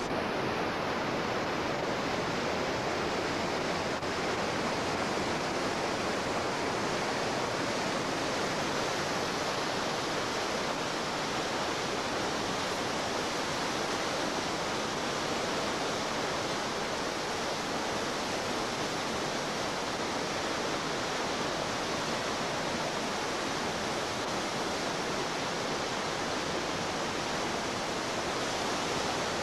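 Whitewater rapids rushing steadily, a continuous even roar of churning water.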